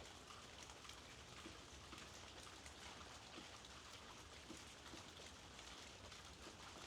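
Faint, steady rainfall, with individual raindrops ticking on a surface.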